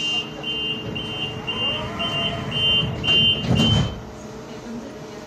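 Tram door-closing warning, a short high beep repeating about twice a second, stopping about four seconds in. A loud thump comes near the end of the beeping.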